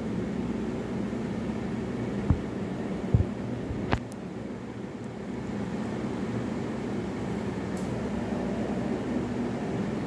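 Steady low mechanical hum, like a fan running, with three short sharp knocks between about two and four seconds in.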